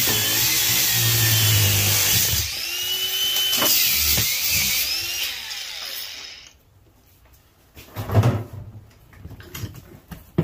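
Cordless angle grinder cutting into the aluminum body of a furnace gas valve to free its copper coil, running with a steady high whine whose pitch sags and recovers under load. After about five seconds it winds down and stops. A few sharp knocks of the metal part being handled follow.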